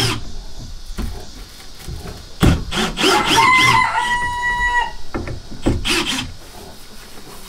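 A rooster crows once, about three seconds in, ending in a long held note. Short bursts of wood rubbing and scraping come before and after it, as a board of the wooden feeder frame is worked back out.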